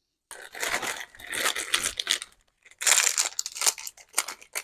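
Packaging wrap being pulled off and handled, crinkling and tearing in irregular bursts, loudest a little before the middle and breaking into shorter rustles near the end.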